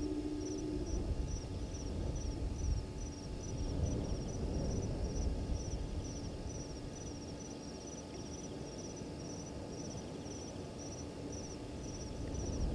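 An insect chirping in a steady rhythm of short high chirps, about two a second, over a low rumble of outdoor background noise.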